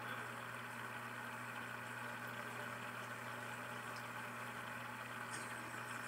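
Aquarium pump humming steadily with a low, even electrical drone.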